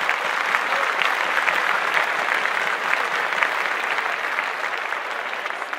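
Audience applauding steadily, many hand claps blending together and easing off slightly near the end.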